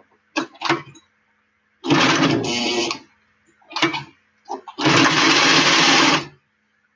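Old electric sewing machine running in stop-start bursts: a few quick blips and two longer runs of stitching, about one and one and a half seconds long. The machine is acting up and bunching the thread.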